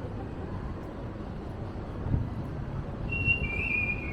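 Wind buffeting the microphone as a steady low rumble. About three seconds in, a thin high whistling tone sounds and steps down in pitch near the end.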